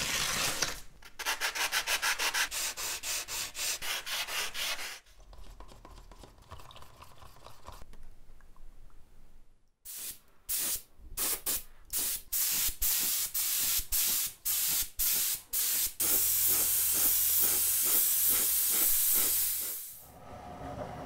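Hand sanding with sandpaper in quick, even strokes, then, after a quieter pause, a gravity-feed spray gun spraying paint. It fires in a series of short bursts and then one long, steady hiss of about four seconds.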